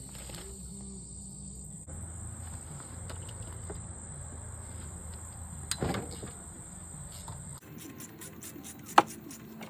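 Crickets chirring steadily at a high pitch, cutting off suddenly about three-quarters of the way through. There are a couple of short clicks, the loudest a sharp click near the end.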